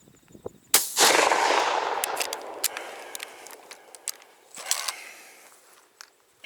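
A 20-gauge shotgun fires a single shot about a second in, and the report rolls away and fades over the next two to three seconds. A few short sharp clicks follow.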